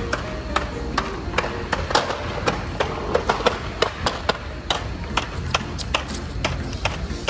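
Irregular sharp knocks and clatter, a few every second with no steady rhythm, over a low steady hum.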